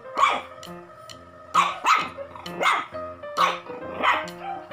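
Shih tzu puppy giving about six short, high yaps at uneven intervals over background music with a steady beat.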